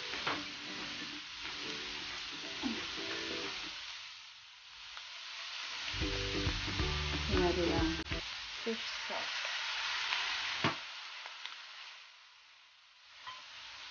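Diced beef heart, liver and lung sizzling in a hot wok with onion and bay leaves, a steady frying hiss that fades near the end.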